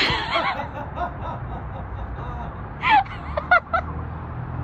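A person's gasping laugh at the start, then a few short, high, falling cries of laughter about three seconds in, over a low steady hum.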